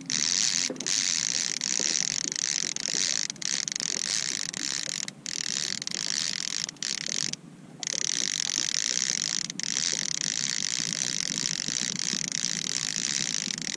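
Fishing reel being cranked fast to bring in a hooked fish, its gears giving a steady ratcheting whir that stops briefly several times as the cranking pauses.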